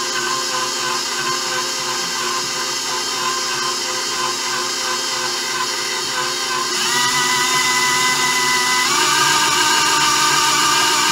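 An old KitchenAid stand mixer running with its dough hook, kneading stiff pie-crust dough, with a steady motor and gear whine. About seven seconds in the whine gets louder and rises in pitch, and about nine seconds in it steps up again. The owner calls the worn mixer half worn out, with four gears already replaced.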